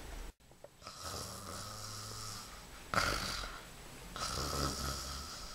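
A sleeping girl snoring in slow, drawn-out breaths. The loudest snore starts sharply about three seconds in, and another follows about a second later.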